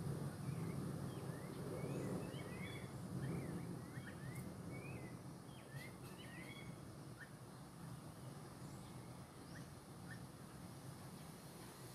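Birds chirping and chattering outdoors: many quick, short calls, busiest in the first half and thinning out later, over a low steady background rumble.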